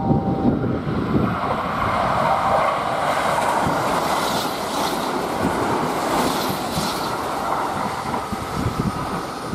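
Kintetsu 23000 series Ise-Shima Liner express train passing through the station at speed without stopping. A loud, steady rush of wheel and running noise, with the wheels clattering over the rail joints, eases off near the end as the last cars pass.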